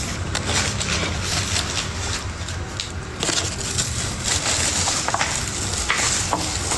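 Close-up crunching and crackling, many small irregular clicks typical of chewing crunchy food right by the phone's microphone, over a steady low hum.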